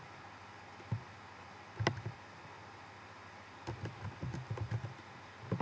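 Clicks of a computer mouse and keyboard: a few single clicks, then a quick run of small taps about four seconds in, over a faint steady hiss.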